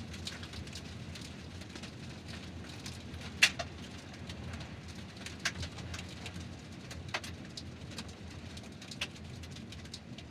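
Car tyres rolling over gravel: a steady low rumble with crackling stones, broken by several sharp clicks of stones, the loudest about three and a half seconds in.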